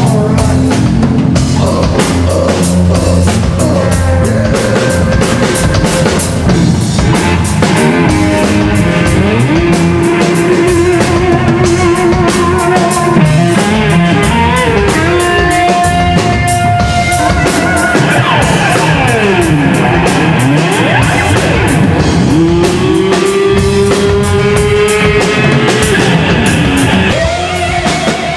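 Live heavy metal band playing loud: a drum kit with cymbal crashes and distorted electric guitar over bass. A lead line of long held notes runs through the middle, with sliding dives and rises in pitch.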